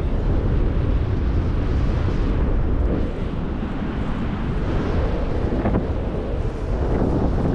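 Wind buffeting the microphone in a steady low rumble: airflow over the camera during a paragliding flight.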